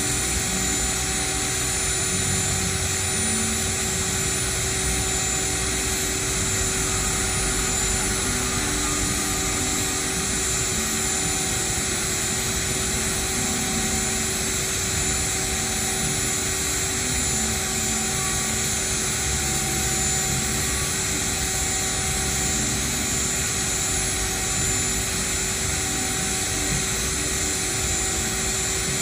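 CNC machine running steadily while carving, its spindle giving a constant whine with a mid-pitched tone that comes and goes as the machine moves.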